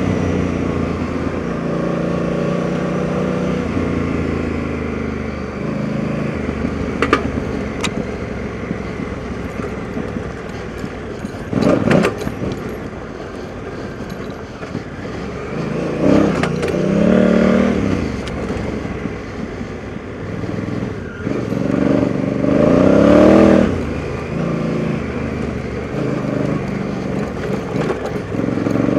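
Honda Africa Twin motorcycle's parallel-twin engine under way on a dirt trail, its exhaust note rising and falling as the throttle is opened and closed, with several short bursts of revs. A sharp knock comes about twelve seconds in.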